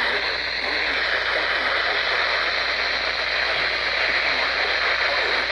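Static hiss from a weak weather radio signal, steady throughout, with a faint broadcast voice barely showing through.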